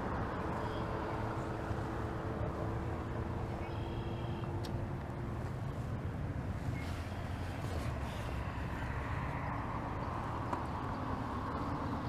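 Boat motor running steadily under way, a continuous low rumble.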